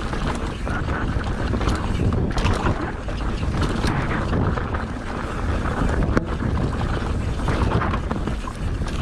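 Wind buffeting the microphone of a camera on a moving mountain bike, with the tyres rolling over a loose dirt trail and a few sharp knocks and rattles from the bike.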